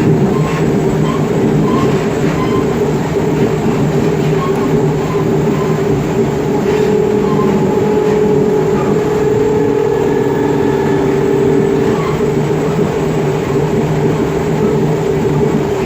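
Mafersa-built CPTM Série 1700 electric multiple unit car running, heard from inside the passenger saloon: the traction equipment's steady growl over wheel and rail noise. A steady tone in the drone swells louder for a few seconds midway, then eases back.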